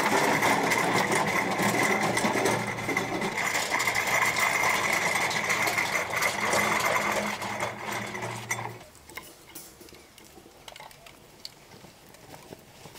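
A small electric motor running steadily with an even hum, switched off abruptly about nine seconds in, after which only a few faint clicks remain.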